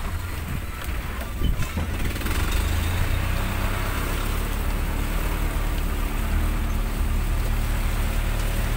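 Motor vehicle running steadily while on the move at low speed, with a continuous deep rumble of engine and road noise.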